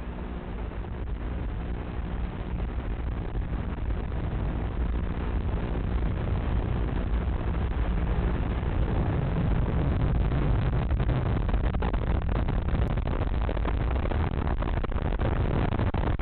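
A low, rumbling noise that swells steadily louder over the first ten seconds or so, then holds level.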